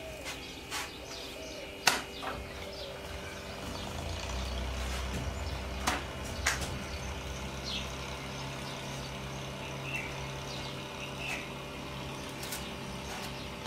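Steady household background hum with faint bird chirps, a few sharp knocks, and a low rumble like a passing vehicle for a couple of seconds in the middle.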